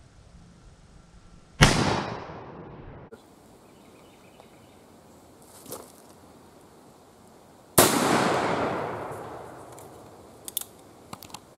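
Two shots from an 1858 Remington black-powder percussion revolver, about six seconds apart. The second shot rings off into a long echo that fades over about two seconds. A few light clicks follow near the end.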